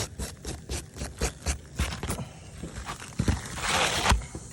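Irregular taps, clicks and scrapes of an asphalt roof shingle being handled, with a longer scraping hiss about three and a half seconds in.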